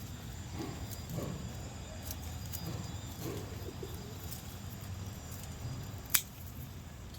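Pigeon cooing softly a few times over a low steady background rumble, with one sharp click about six seconds in.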